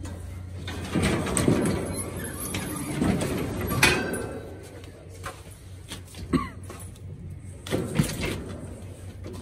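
Blue metal sheep-handling chute rattling and clanking as its rope-pulled sliding gate is worked, with several sharp metal knocks.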